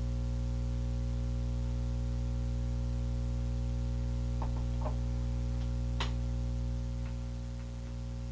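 Steady electrical hum, a stack of even low tones that never changes, with a few light clicks and taps about halfway through as metal eyeshadow pans are handled on a tabletop.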